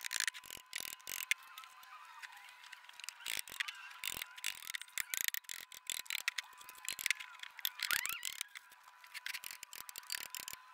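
Irregular light clicks, knocks and short squeaky scrapes of steel threaded rod being worked through drilled holes in heavy wooden beams, with loose metal washers between the boards.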